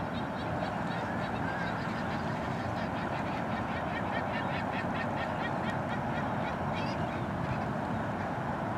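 Steady wind noise on the microphone, with a busy chorus of short, high-pitched bird calls repeating throughout.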